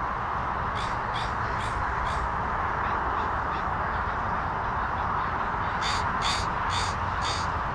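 A crow cawing in two runs of about four short caws, with a few fainter caws between, over the steady distant roar of jet airliner engines.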